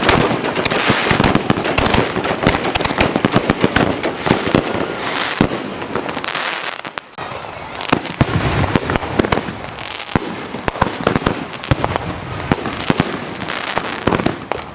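Consumer fireworks going off in a rapid, dense volley of sharp bangs and crackling, with a brief lull about seven seconds in.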